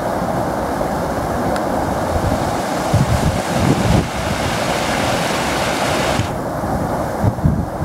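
Muddy floodwater rushing through a wadi in spate, a loud, steady roar of churning rapids. Wind gusts on the microphone rumble around three to four seconds in and again near the end.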